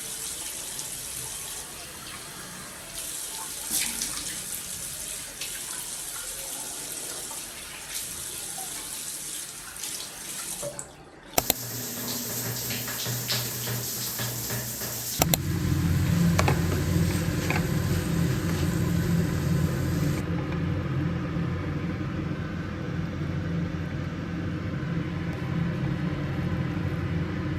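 Tap water running into a sink as a steady hiss, which stops suddenly after about eleven seconds. A few seconds later a louder, steady low hum takes over.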